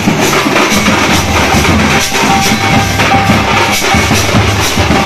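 Large double-headed street drums played in a steady, loud dance rhythm.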